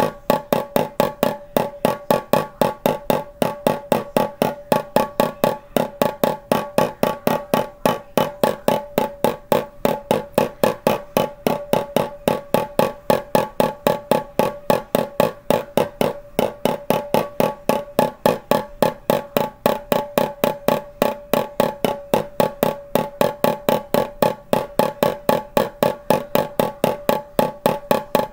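Drum struck steadily with a ball-headed mallet, about three even beats a second, each beat ringing with a clear pitch.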